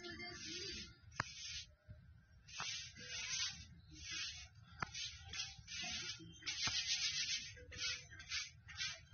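Irregular short bursts of hissing, rubbing noise, about eight of them, with a few sharp clicks in between.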